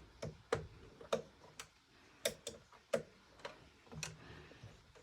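Light, irregular clicks and ticks from a small hand screwdriver driving the screw that holds the PS5's M.2 expansion slot cover back in place.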